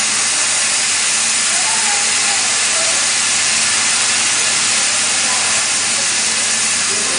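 Triple-torch CNC bevel cutting head cutting through metal plate: a loud, steady hiss from the torch jets.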